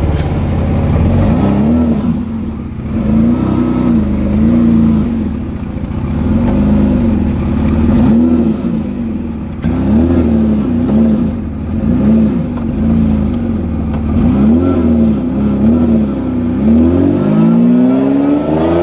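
Supercharged BMW M50B20 2.0-litre straight-six, heard from inside the car's cabin, rising and falling in pitch again and again in short revs about once a second, then climbing steadily near the end as the car accelerates.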